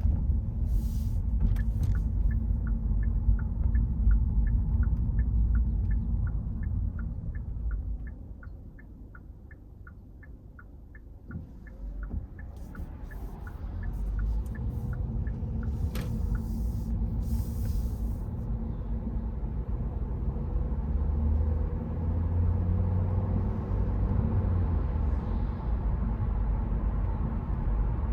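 A car driving on wet roads: a steady low rumble of engine and tyres that fades as the car slows about eight seconds in and builds again as it pulls away. A regular ticking at about three a second runs through the first half, and a few short hissing sweeps come in the middle.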